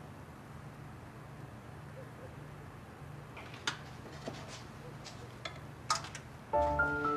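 A few light clicks and taps of hand work at a kitchen counter over a low steady hum. Near the end, background music with mallet-like notes comes in.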